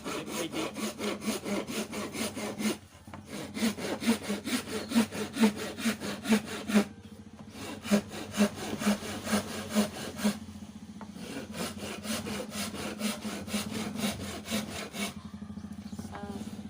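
Hand saw cutting through hardwood in quick back-and-forth strokes, about three a second, pausing briefly twice and then going on with lighter strokes.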